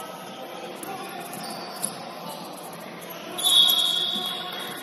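A referee's whistle blown once, a single shrill high tone lasting about a second, about three and a half seconds in, over the chatter of players and spectators in a gym. A single sharp knock, likely the ball or a shoe on the floor, comes a little before the two-second mark.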